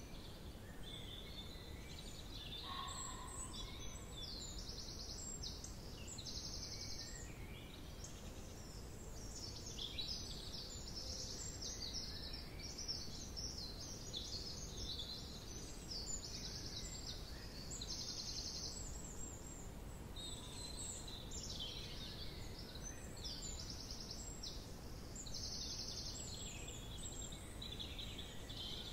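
Several small birds singing and calling in woodland, with short high trills repeating every few seconds, over a steady low rumble.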